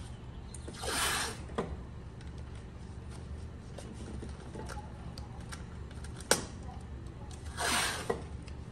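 Blue painter's tape being pulled off its roll and pressed down by hand: two short rasping rips, about a second in and near the end, with a few light clicks and taps between them, over a steady low hum.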